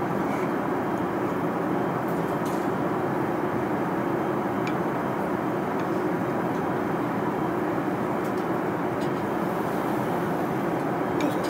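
Steady cabin noise of an Airbus A380 in flight: a constant, even rush of engine and airflow noise, heaviest in the low-mid range, with a few faint light clicks.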